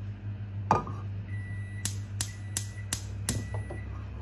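Gas hob's electric spark igniter clicking five times in quick succession, about three clicks a second, as the burner knob is held in, after a single knock about a second earlier.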